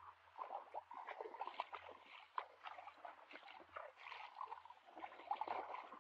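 Hands squelching and splashing in shallow muddy water, an irregular run of short wet slaps and gurgles.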